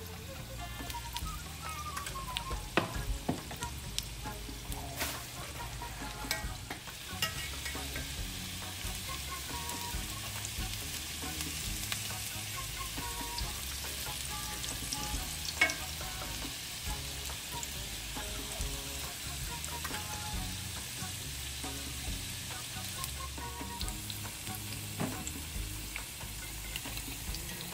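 Spring rolls deep-frying in hot vegetable oil in an enameled cast-iron pan: a steady sizzle, broken by sharp clicks and scrapes as a metal slotted spatula turns and lifts them several times.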